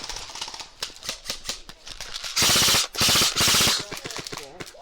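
Airsoft electric gun (AEG) firing on full auto: scattered single clicks, then about two and a half seconds in, three loud rapid bursts of a fraction of a second each in quick succession.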